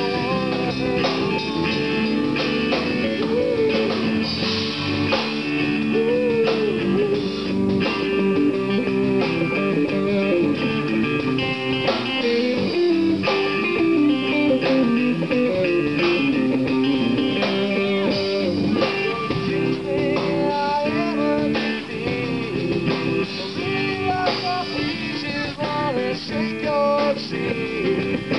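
Live rock band playing through PA speakers: electric guitars, electric bass and drum kit, steady and full throughout.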